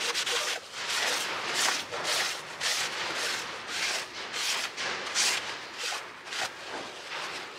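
Cloth rag rubbing back and forth over the face of a BMW M57 diesel cylinder head, a quick brushing stroke about twice a second that fades near the end: wiping the combustion chamber clean to inspect it for cracks and damage.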